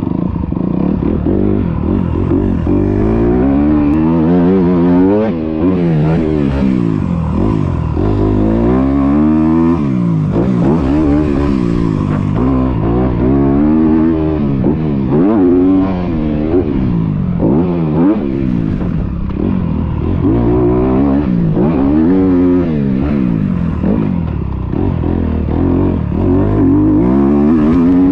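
Motocross dirt bike engine revving hard and falling back over and over, its pitch rising and dropping every couple of seconds as the rider accelerates through the gears and backs off around the track. It is heard close up from the rider's chest.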